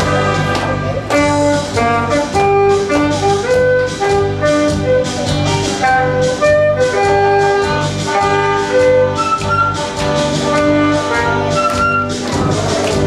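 An instrumental march: a melody of held notes over a steady bass line and a regular beat.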